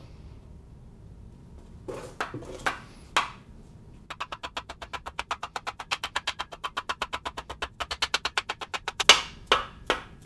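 A mallet tapping the lower crankcase half of a 2004 MINI Cooper S engine down onto the block to seat it: a few separate knocks about two seconds in, then a rapid, even run of light taps, about eight a second, ending in a few harder knocks.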